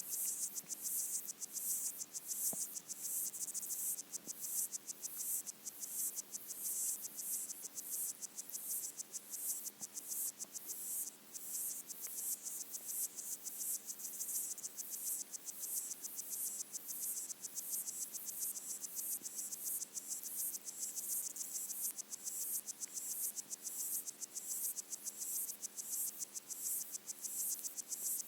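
Underwater chorus of pygmy water boatmen (Micronecta) stridulating: a dense, high-pitched, rapidly pulsing chirring that repeats without a break, heard through a hydrophone.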